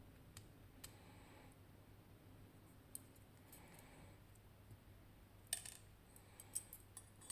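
Small metal lock parts and tools being handled during disassembly of a lock: a few faint isolated clicks, then a cluster of sharper metallic clicks and clinks over the last two seconds.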